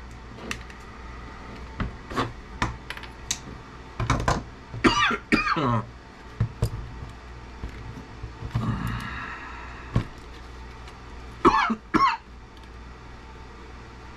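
Pliers and hand work on a CB radio: clicks, taps and knocks of plastic knobs and the metal chassis as the knobs are pulled off and the radio is handled. Two louder short pitched squeaks stand out, about five seconds in and again near twelve seconds.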